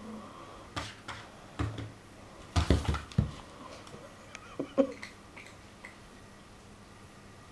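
A kitten's paws thumping and scrabbling against a wall and a wooden floor as it pounces at shadows: a handful of quick knocks, the loudest cluster about two and a half to three seconds in.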